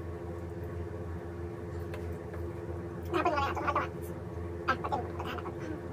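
Steady low hum in the room, with short voice-like sounds about three seconds in and again near five seconds.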